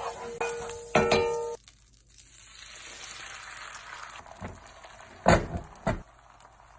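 Music with a held note that cuts off about a second and a half in, then butter and beaten egg sizzling in a cast-iron skillet. Two sharp knocks near the end.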